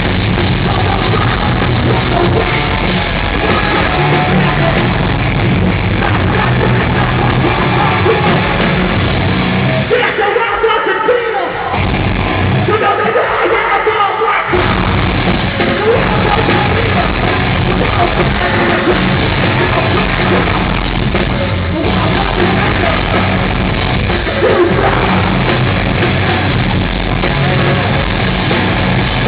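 Heavy rock band playing live at full volume, with distorted guitars, drums and shouted vocals. About ten seconds in, the low end drops out for a few seconds, leaving guitar and voice, before the full band comes back in.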